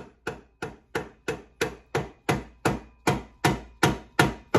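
Rubber mallet tapping a VW Beetle IRS rear stub axle home through its newly packed wheel bearing, driving it to seat against the back of the housing. An even run of blows, about three a second, growing heavier about halfway through.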